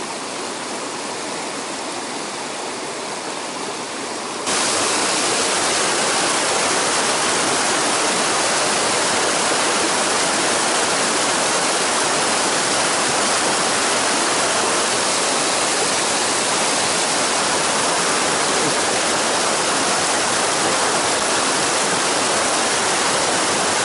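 Mountain stream water rushing over rocks through riffles and small cascades, a steady rush that jumps suddenly louder about four and a half seconds in.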